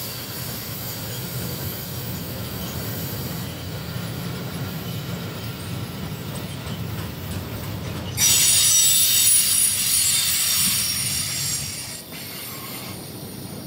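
Freight train of covered sliding-wall wagons rolling past, a steady rumble of steel wheels on rail. About eight seconds in, a loud, high-pitched metallic wheel squeal of several steady tones sets in and lasts about four seconds before cutting back to the rumble.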